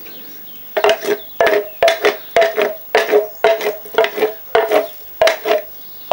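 A wooden spoon knocking and scraping inside a metal tin can to get peeled tomatoes out, the tin ringing briefly with each stroke. The knocks come in a quick, uneven run of several a second, starting under a second in.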